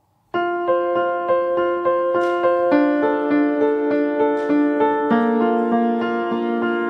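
Background music on a piano-like keyboard: a steady pattern of repeated notes, about three a second, starting suddenly just after the start.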